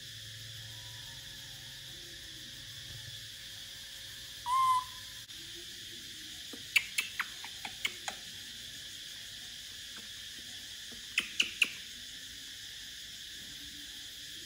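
A baby macaque gives one short, high coo about four and a half seconds in. Then come sharp clicking taps in two quick clusters, about six and then three, from its plastic feeding bottle knocking on the wire cage bars. A steady high hiss runs underneath.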